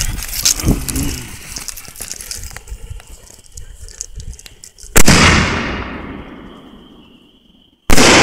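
Gold willow canister firework shell fired from a mortar: the fuse hisses and crackles, a dull thump launches the shell, and about five seconds in a loud bang trails off in a long, fading echo. Another sharp bang comes near the end as the shell bursts.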